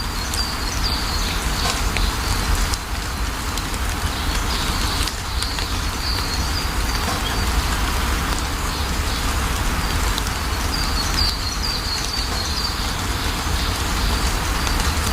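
Steady rain falling, over a low rumble, with a bird chirping a few times, including a quick run of chirps about two-thirds of the way through.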